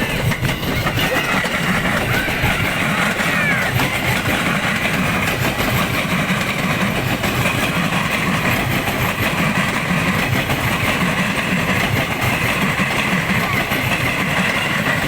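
Steady, loud vehicle noise with people's voices mixed in.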